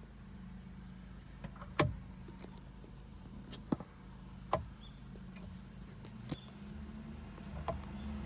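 Urban Triker electric trike with a steady low hum, broken by sharp clicks or knocks that come at irregular moments, five or so times. These are the kind of abnormal noises the owner is puzzled by.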